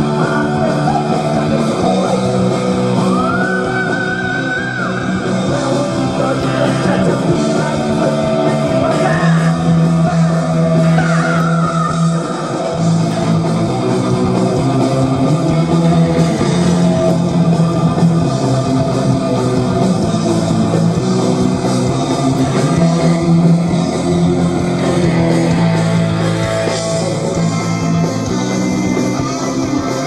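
Heavy metal band playing live: distorted electric guitars, bass guitar and drums, loud and continuous. About three seconds in, a high note slides up and holds for a second.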